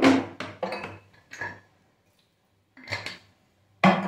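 A metal spoon clinking and knocking against a metal kadai while a thick curry is stirred. There are several quick knocks at first, a short pause, then two more knocks near the end.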